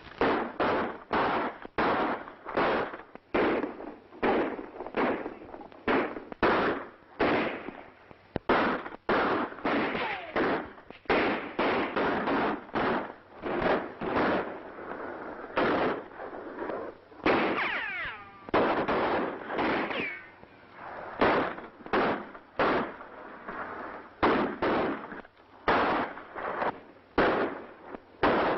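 Gunfight: a steady exchange of revolver and rifle shots, about one to two a second, each followed by an echoing tail.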